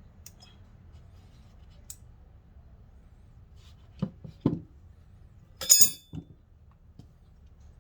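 A few dull knocks, then a sharp metallic clink with a short ring and one softer knock after it: metal parts being handled and set down.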